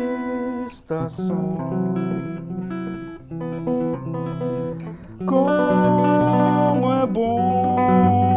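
Hollow-body archtop guitar playing chords and melody in an instrumental passage, with short breaks in the phrasing about a second in and near five seconds in.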